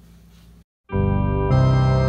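Background music: spooky pipe organ chords that come in abruptly about a second in, after faint hum and a short dropout, held and then changing chord partway through.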